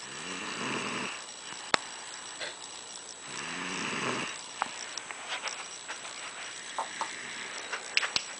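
A man snoring in his sleep: two rattling snores about three seconds apart. A sharp click comes between them, and a few small clicks follow in the second half.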